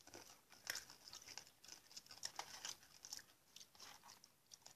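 Faint chewing and crunching of candy-shelled Smarties, a run of small irregular crunches.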